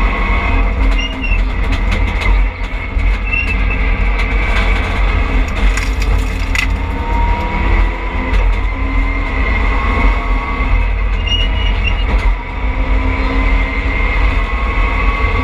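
Rally car driven hard, heard from inside the stripped, caged cabin: a loud, steady engine and road rumble with a high whine over it, the pitch climbing about seven seconds in. A cluster of sharp clicks comes about six seconds in.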